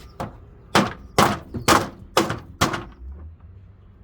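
Six sharp knocks in quick succession, about half a second apart, as the plastic pins that hold the arm of a front-load washer are knocked out.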